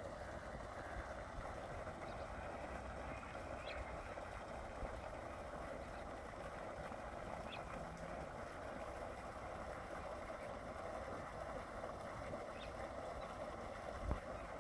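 Steady outdoor background noise with three faint, short bird chirps, and a brief low thump near the end.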